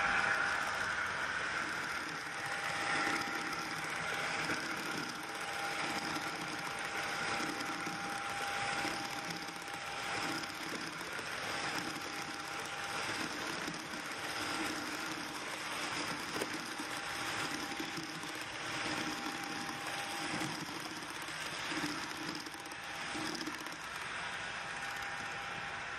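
Fleischmann HO-scale model trains running on the layout track: a steady small electric motor whir with the rattle and ticking of wheels and wagons on the rails.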